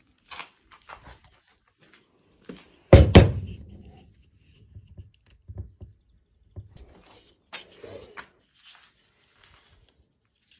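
Cordless power tools and battery packs being handled and set down on a tabletop: two heavy knocks close together about three seconds in, then light clicks and taps as the tools and batteries are moved.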